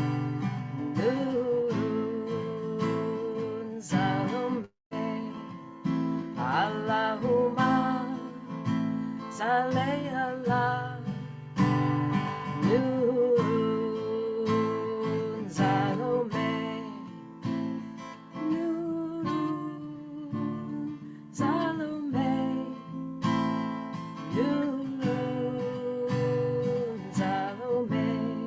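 Strummed acoustic guitar accompanying a voice singing a devotional Sufi chant, with long held notes that slide between pitches. The sound cuts out for an instant about five seconds in.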